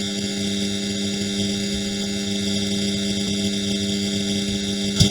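A steady electrical hum with many overtones, cutting off abruptly near the end.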